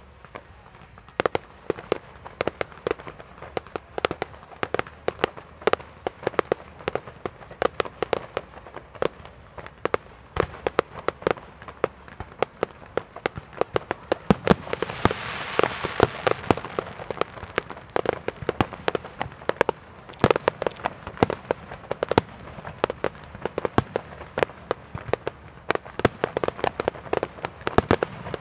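Fireworks display: a fast, unbroken barrage of bangs from bursting aerial shells, starting about a second in, with a rising and fading wash of hissing crackle around the middle.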